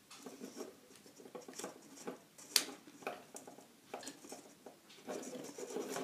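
Small handling noises of hands working electrical wires and a push-button switch: scattered faint clicks and scratches, with one sharper click about two and a half seconds in.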